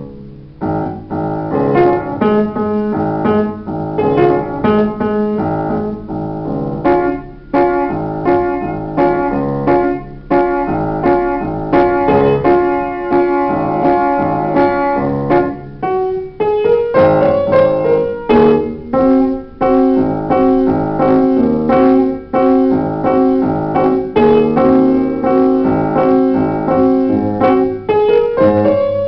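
Upright piano played solo: continuous melody and chords, notes struck and ringing on with sustain, with a brief lift near the start.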